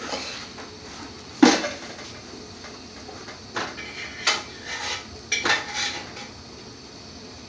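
Metal pots, pans and utensils clattering: several separate knocks and clinks, the loudest about a second and a half in and a cluster of them later, over a steady faint hiss.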